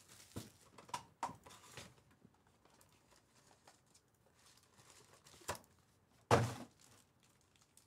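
Cardboard trading-card hobby box being handled and opened: soft taps, light plastic-wrap crinkling and the rustle of a pack being drawn out. About six seconds in comes one louder thump, the loudest sound here.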